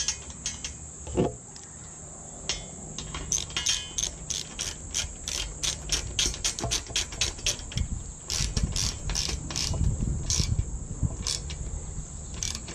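Hand socket ratchet clicking in quick runs of strokes with short pauses, tightening a bolt into a spring nut in steel strut channel. A single knock comes about a second in, before the clicking starts.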